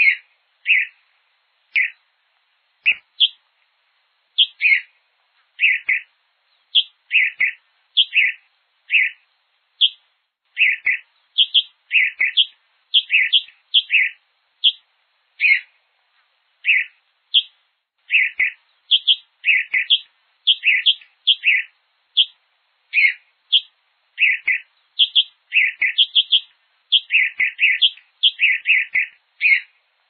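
Sanhaçu-de-fogo (hepatic tanager, Piranga flava) calling: a long series of short chirpy notes, often in quick runs of two to four, with lower and higher notes alternating and brief pauses between runs.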